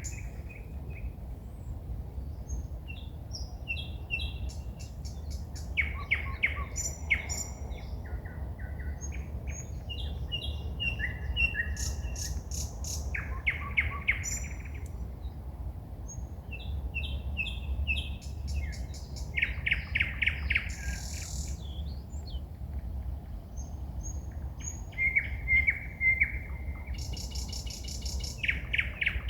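Forest songbirds singing at night: a varied song of phrases one after another, mixing fast series of repeated notes, clear high whistles and clicks.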